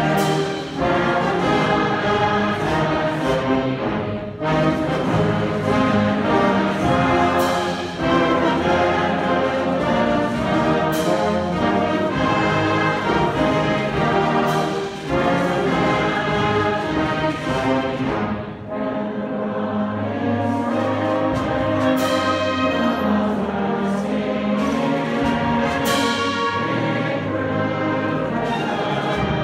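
Student concert band playing: woodwinds and brass holding full chords, punctuated by sharp accents every few seconds. The music eases off briefly a little past halfway, then builds again.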